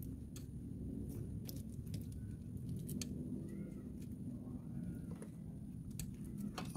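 Faint scattered clicks and light rubbing of a tissue-wrapped finger wiping excess sealer around a spark-plug tube seal, over a steady low hum. A faint bird chirps twice in the middle.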